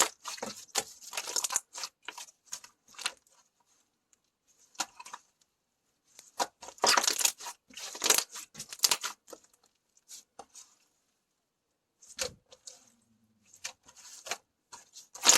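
Slime being stretched, squeezed and pulled apart by hand, making bursts of crackly, tearing pops and clicks that come in clusters between short silences.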